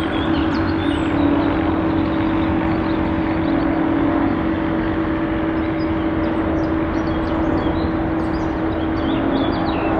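Embraer 190 twin turbofan engines on landing approach: a steady jet drone with a held humming tone over a low rumble.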